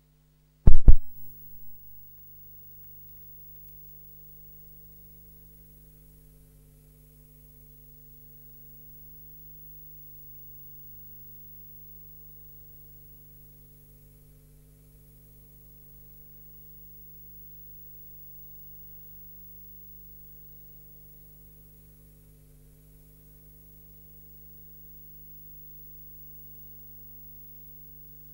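A single loud thump less than a second in that dies away within about a second, followed by a faint steady hum with no other sound.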